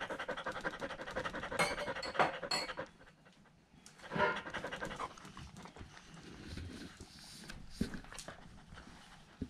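Kelpie panting hard and fast from storm anxiety, close to the microphone. The panting breaks off about three seconds in, then picks up again more softly, with a few sharp clicks about two seconds in.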